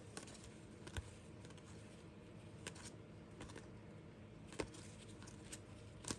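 Faint, sparse clicks and taps of trading cards and card packs being handled, a sharp tick every second or two.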